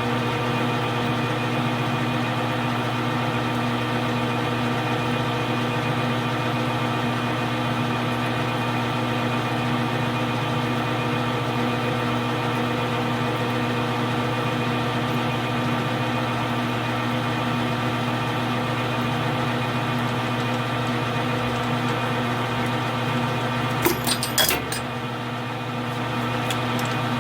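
Metal lathe running steadily with a number 25 drill bit held in the tailstock, drilling through a small spacer pin; the hum carries several fixed tones. A few sharp clicks come near the end.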